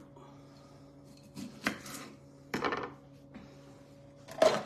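Kitchen knife cutting a lime on a wooden cutting board, and knocks as the lime is handled at a plastic food-processor bowl: three short bursts of clatter, the loudest near the end.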